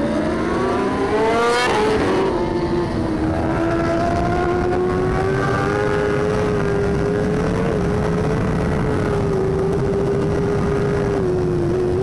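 Onboard sound of superbikes at racing speed. A four-cylinder engine climbs in revs for the first second or two, then there is a sudden click. After that a Kawasaki ZX-10RR superbike's inline-four runs near flat out at high revs, its pitch creeping slowly upward with a couple of small dips.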